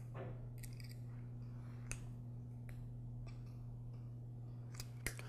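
A few faint metallic clicks from needle-nose pliers working spring hose clamps onto a rubber fuel line, over a steady low hum.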